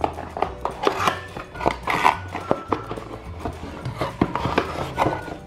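A cardboard toy box being handled and opened by hand: an irregular run of taps, knocks and clicks, over light background music.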